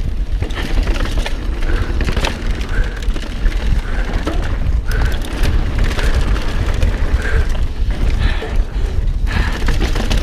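Mountain bike descending a dirt trail at speed, with heavy wind buffeting on the helmet-camera microphone and a steady clatter of clicks and knocks from the tyres and bike rattling over bumps.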